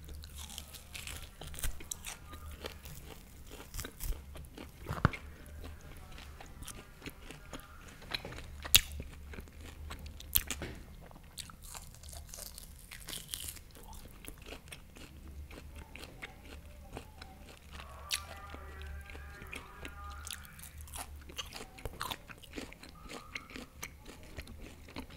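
Close-miked chewing and biting of a piece of beef steak (bistec), which the eater finds tough: many wet mouth clicks and smacks, with a few sharper, louder crunches, over a low steady hum.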